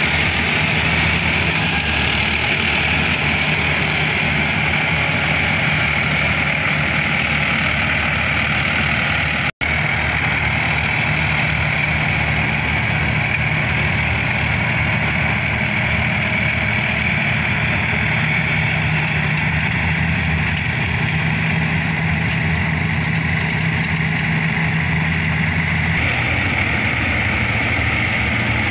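Combine harvester's engine and threshing machinery running steadily at working speed in a muddy paddy field, with a brief break about ten seconds in.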